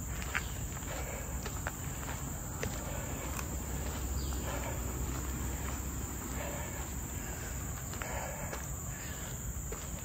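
Steady high-pitched drone of forest insects, with the light crunch of footsteps on a leaf-strewn dirt trail.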